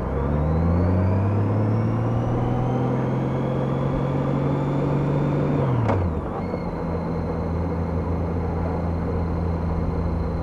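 Honda F6B's flat-six engine pulling away, its pitch rising steadily for about six seconds. It then drops sharply with a short click, as at an upshift, and settles into a steady cruising note.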